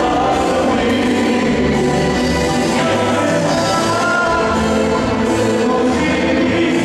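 Live tropical band playing: singers over keytar and electric guitar, loud and steady.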